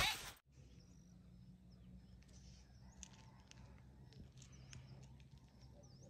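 Faint outdoor ambience: scattered short, high bird chirps over a low steady hum.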